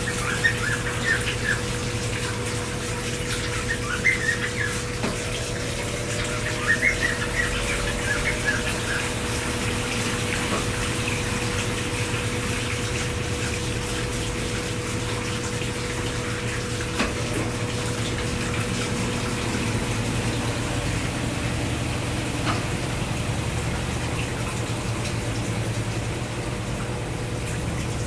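Brastemp Tira Manchas Pro 12 kg washing machine with water pouring steadily into the drum as it fills, over a steady hum.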